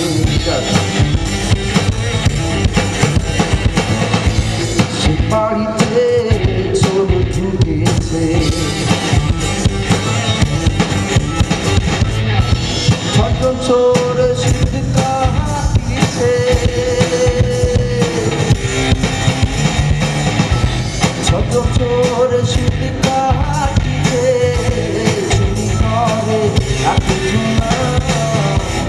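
Live rock band playing loudly, with a drum kit, electric guitars and a singing voice.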